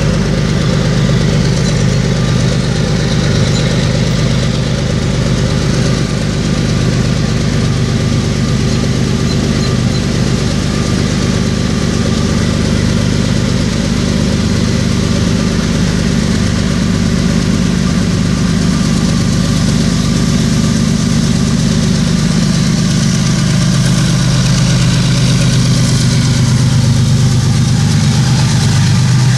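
Diesel locomotive engines running steadily, a loud, unbroken low engine drone.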